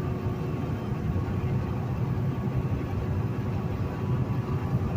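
Semi truck's engine and tyre noise heard from inside the cab while driving at highway speed, a steady low rumble.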